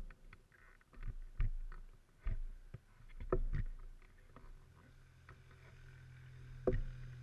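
A canoe being paddled on a calm river: irregular dull knocks and splashes from the paddle strokes against the water and hull, a second or more apart, over a faint steady low hum.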